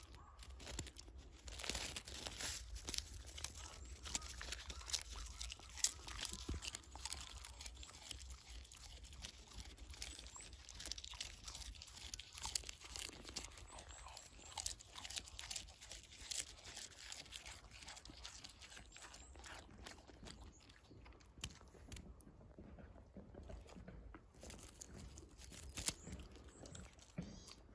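A Shiba Inu biting and chewing bamboo-grass leaves: a long run of irregular crunches and snaps.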